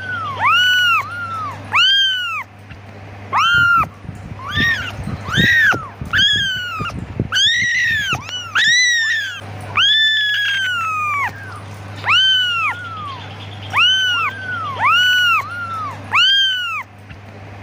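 Young kittens mewing over and over, high-pitched calls that rise and fall, about one a second, with a few longer drawn-out ones in the middle. These are kittens calling for their mother.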